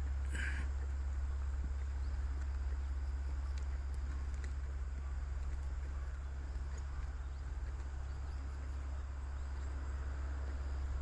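Steady low rumble with faint, thin insect chirping above it, and one brief higher sound about half a second in. No train or crossing bell is heard.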